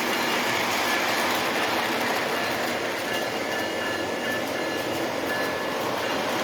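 O gauge model train running on three-rail track: the locomotive's motor and the wheels rolling steadily, with faint whining tones.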